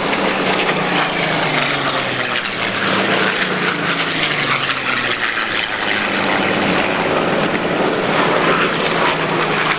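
Piston-engined propeller warbird flying a low pass, its engine and propeller running loud and steady. The engine note drops in pitch as the plane goes by, in the first few seconds and again near the end.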